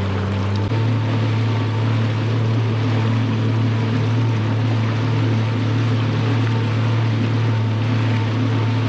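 Jet ski engine running steadily at speed, with wind and water spray rushing past; its note changes abruptly under a second in, then holds.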